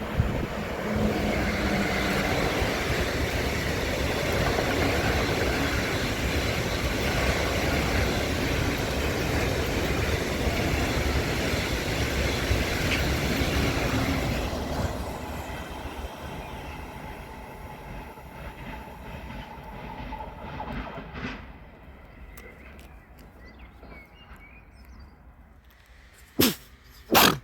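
A train passing on the line: a loud, even rush of noise for about fifteen seconds that then fades away over several seconds. Near the end come two short, sharp sounds close together.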